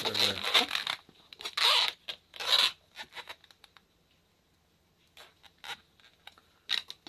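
Inflated latex twisting balloon rubbing and squeaking against the hands as it is twisted and handled, in short scratchy bursts with a quiet pause about halfway through.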